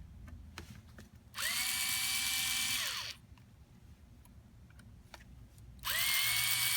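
Small electric drill-driver spinning out the fasteners that hold the trigger assembly to the air tube: it runs for about a second and a half, its whine rising as it spins up and dropping as it stops, then starts again near the end.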